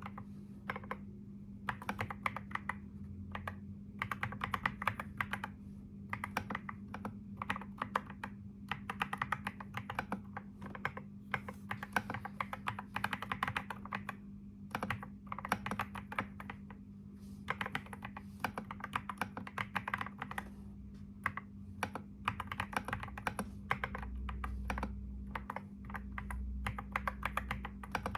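Computer keyboard typing: quick runs of key clicks lasting a second or two, broken by short pauses. A steady low hum sits underneath.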